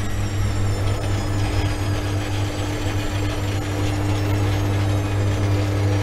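Washing machine on a moderate spin cycle: a steady low hum from the spinning drum with a thin, high motor whine that drifts slightly lower in pitch.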